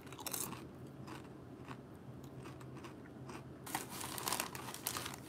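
A person crunching and chewing a mouthful of Original Sun Chips, with a few crisp crunches at first and a denser run of crunching about four seconds in.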